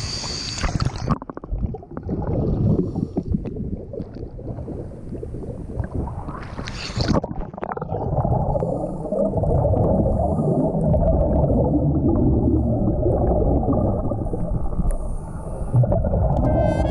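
Scuba diver's regulator exhaust bubbles heard from underwater: a muffled bubbling rumble with scattered clicks, after a second of splashing water and wind at the surface, and a short hiss about seven seconds in.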